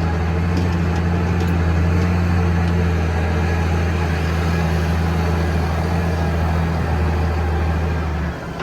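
Tractor engine running steadily with a loud low drone, easing off about eight seconds in.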